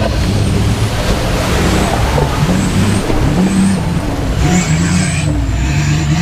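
Off-road vehicle engine running and revving, its pitch rising and falling, over a steady rushing noise.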